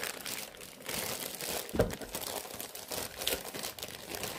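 Thin clear plastic polybags crinkling and rustling as they are handled and turned over, with one sharper crackle a little under two seconds in.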